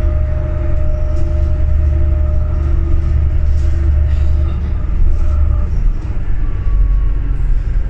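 Interior sound of a New Flyer D40LFR diesel city bus driving at road speed: a steady low engine drone with a thin whine above it that slowly falls in pitch. About six seconds in, the drone drops lower.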